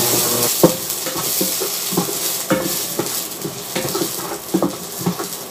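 Wooden spatula stirring in a stainless steel pan, knocking and scraping against the pan about twice a second, over the steady sizzle of garlic, onion and ginger sautéing in oil.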